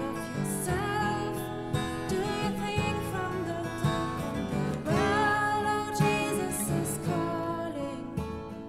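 A woman singing a worship song to a strummed acoustic guitar.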